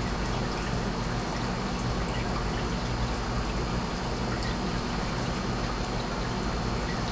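Water trickling steadily in a reef aquarium, with a steady low hum, as from the tank's circulation pump.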